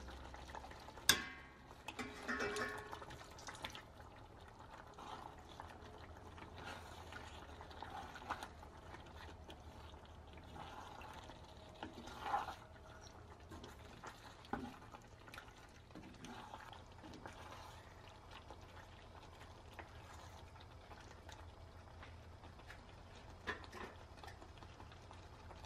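Wooden spatula stirring thick tomato sauce and pasta in a cast-iron pan: soft wet squishing, with a few sharp knocks of the spatula against the pan, the loudest about a second in. Under it runs a faint steady low hum.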